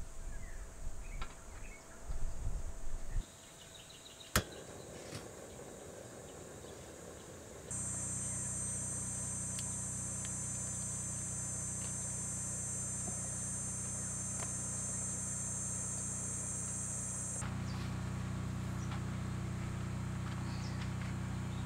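Insects buzzing steadily in a high, even drone that starts abruptly about eight seconds in and drops back near the end, over a low steady hum. Before it come low rumbling and one sharp click.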